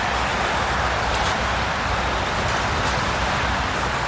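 Steady street traffic noise: a continuous hiss of passing vehicles.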